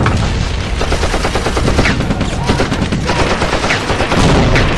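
Heavy battle gunfire: rifle shots overlapping in a rapid, continuous stream.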